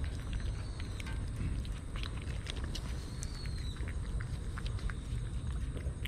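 Two kittens eating wet cat food from a stainless steel tray close to the microphone: irregular wet chewing and lapping clicks over a steady low rumble.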